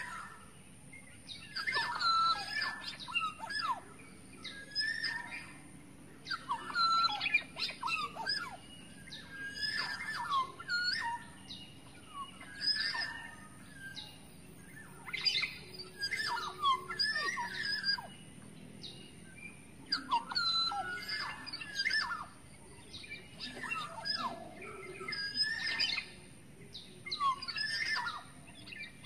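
Black-naped oriole (kepodang) singing in the wild: short phrases of whistled, sweeping notes repeated every couple of seconds with brief pauses between.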